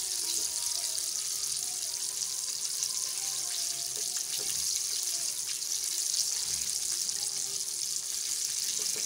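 Chicken pieces deep-frying in hot oil in a pan: a steady sizzle with fine crackling throughout.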